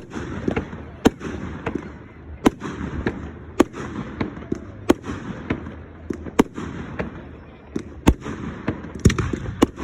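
Fireworks display: a steady run of sharp bangs, roughly one a second and some in quick pairs, over continuous crackling and rumble.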